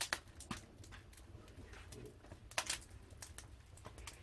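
Firewood burning in a traditional Korean agungi firebox, crackling with scattered sharp pops at irregular intervals over a low rumble.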